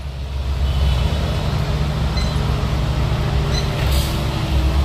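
Heavy diesel vehicle engine running steadily at low speed, with a brief high hiss about four seconds in.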